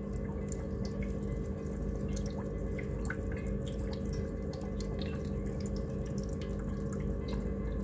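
Water dripping and bubbling in a brine shrimp culture container: many small irregular drips and pops over a steady low hum.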